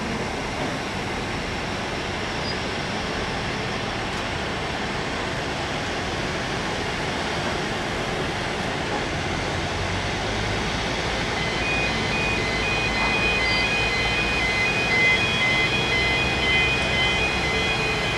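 Jet airliner engines running: a steady rushing roar that grows slightly louder over the last third, with high thin tones coming and going in the later part.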